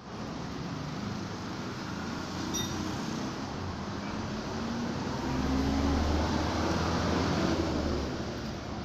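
Steady rumbling vehicle noise, growing louder about five seconds in and easing again near the end.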